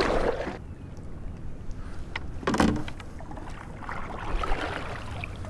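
Kayak paddle strokes: the blades dipping and pulling through the water in three splashing strokes, about one every two seconds, the middle one sharper.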